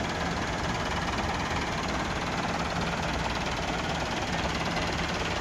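Massive 390 tractor's 4.1-litre diesel engine idling steadily.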